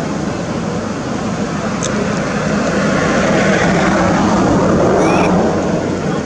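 A passing motor vehicle's engine and road noise, swelling to a peak about five seconds in and then easing off.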